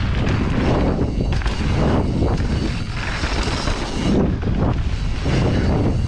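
Wind rushing over an action camera's microphone and mountain bike tyres rolling fast over a gravelly dirt trail, a constant low rumble that surges and dips with the terrain.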